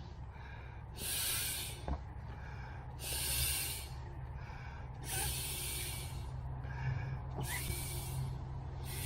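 A man blowing up an air mattress by mouth: long, hard breaths into the valve about every two seconds, with quicker, fainter inhales between them.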